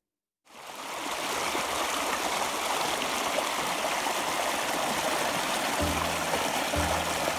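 Shallow spring-fed river rushing and splashing over rocks: a steady rushing sound that fades in after a brief silence at the start.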